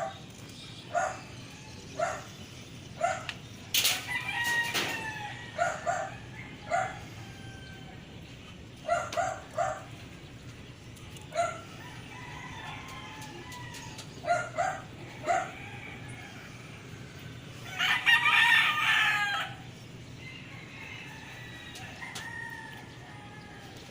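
Chickens calling with short repeated clucks, often in twos or threes, and a rooster crowing loudly about eighteen seconds in.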